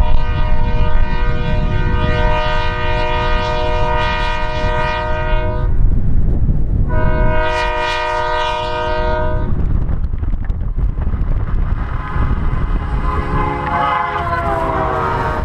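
Diesel locomotive's multi-note air horn sounding two long blasts, about a second apart, over the heavy low rumble of locomotives driving through deep snow drifts. Near the end, a train rushes past close by, its horn falling in pitch.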